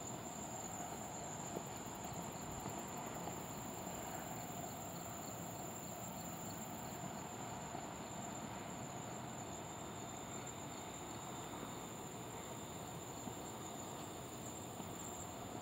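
Night insects, crickets, chirring steadily in a continuous high tone, with a fainter pulsing call repeating evenly beneath it.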